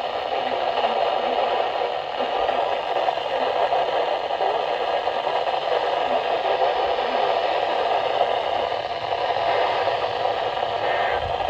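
Steady static hiss from a NOAA Weather Radio receiver, with no voice on the channel.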